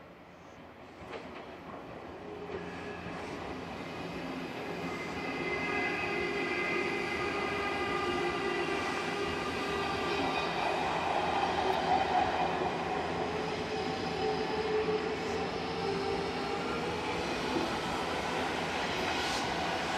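Odakyu Line electric commuter train passing. Its running noise builds over the first several seconds, then holds steady, with several steady tones sounding over it.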